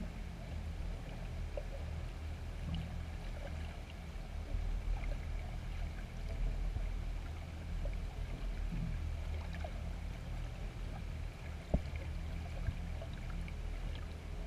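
Underwater ambience recorded through a GoPro's waterproof housing: a steady low rumble with a faint hiss and scattered faint ticks and clicks, one sharper click about 12 seconds in.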